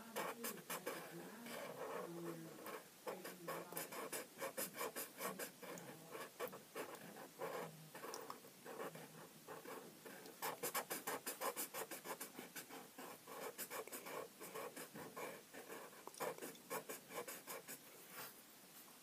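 Felt-tip marker scribbling on paper, colouring in with quick back-and-forth strokes, busiest around ten to thirteen seconds in.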